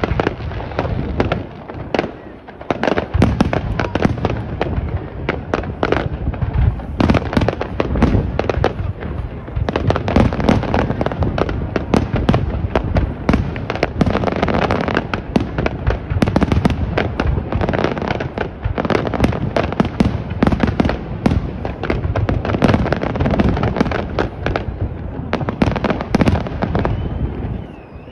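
Aerial fireworks display: a dense, rapid barrage of shell bursts going off one on top of another, thinning out near the end.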